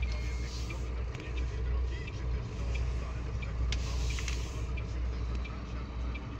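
Truck's diesel engine running steadily at low speed, heard from inside the cab as a low rumble, with a few light clicks about four seconds in.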